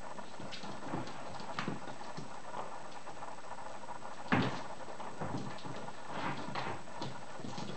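Whippet puppies scuffling at play on a hard floor: scattered light paw taps and scrabbling, with one louder knock about four seconds in.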